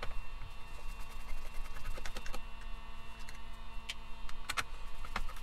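Scattered small clicks and taps of hands handling and opening the plastic housing of a Hitachi cordless drill, with a louder cluster of clicks about four and a half seconds in.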